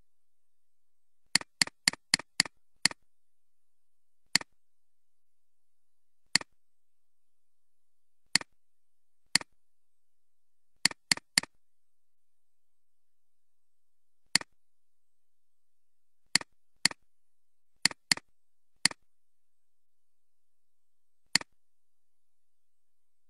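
Computer mouse button clicking about twenty times, each a sharp click of press and release: six in quick succession, then single clicks and short runs of two or three spaced a second or two apart. Near silence between the clicks.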